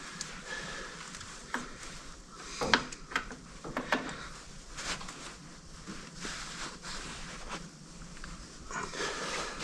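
Scattered light clicks and knocks of hands handling small parts and tools at a tractor battery's terminals.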